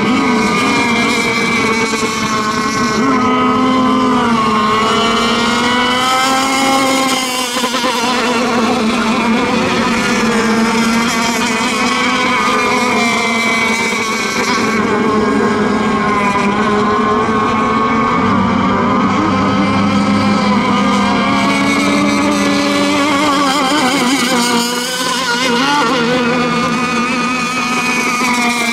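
Engines of several radio-controlled racing boats running at full throttle, each a high whine whose pitch rises and falls as the boats race and turn.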